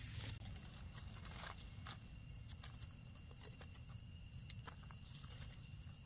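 Footsteps and rustling through the forest floor's litter, with a handful of scattered snaps and clicks, over a low rumble and a faint steady high tone.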